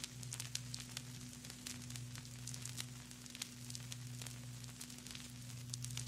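Vinyl record surface noise from a turntable stylus in the groove: irregular crackles and pops scattered over a soft hiss, with a steady low hum underneath.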